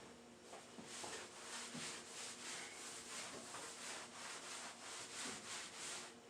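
A cloth rag scrubbing a surface back and forth, about three strokes a second, starting about a second in and stopping near the end.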